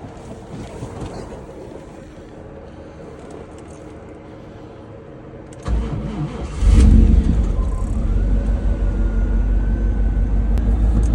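A 1996 Chevrolet Camaro SS's LT1 V8 cranks and starts about six seconds in, catches with a brief rev, then idles steadily. It is running after a severed wire to the #6 fuel injector was repaired, the fault behind its P0200 and P0300 misfire codes.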